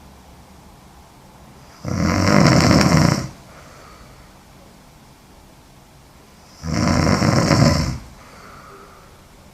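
A woman snoring heavily: two loud snores about five seconds apart, each lasting about a second and a half, with quiet breathing between.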